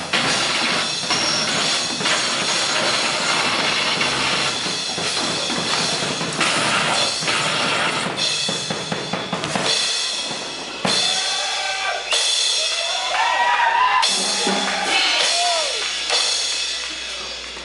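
Live noise-music performance: a loud, dense wall of harsh noise with pounding drums. About eleven seconds in the low end drops away and warbling, gliding high-pitched squeals take over.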